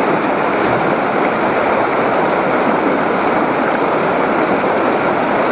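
Mountain river rushing over boulders in a rapid: a loud, steady rush of white water.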